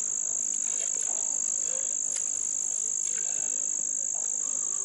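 A steady, high-pitched insect chorus droning without a break, with faint voices and a few light clicks underneath.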